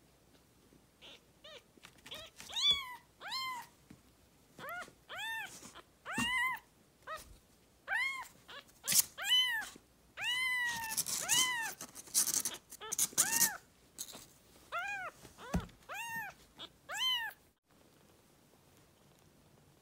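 A newborn kitten mewing over and over in high, thin cries that rise and fall in pitch, some rougher and noisier in the middle: the crying of a hungry neonate kitten searching for milk. The cries stop a couple of seconds before the end.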